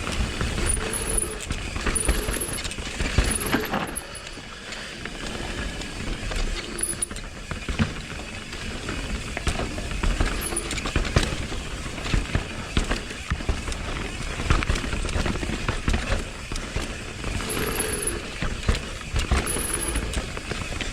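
Mountain bike descending a rough dirt trail: tyres rumbling over the ground, the bike rattling and wind on the microphone. Several short high brake squeals come from the disc brakes (Hope V4 calipers on Galfer Shark rotors with MTX pads), a squeak that keeps coming back despite new pads and rotors.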